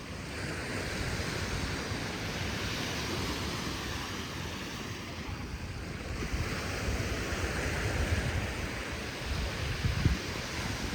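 Surf washing onto a sandy beach, swelling twice as waves break and run up, with wind rumbling on the microphone and a brief knock about ten seconds in.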